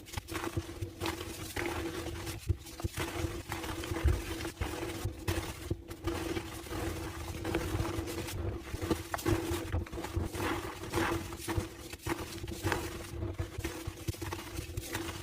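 Homemade gym chalk slabs being crushed by hand, crumbling with dense, irregular crunching and squeaking.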